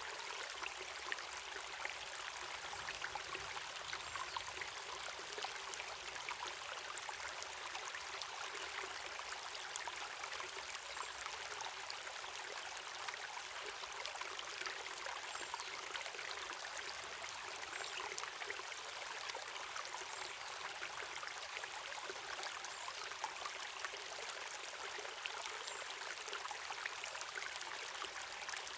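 Running water of a stream falling over a small waterfall: a steady rush with fine splashes throughout, hissy with little low rumble.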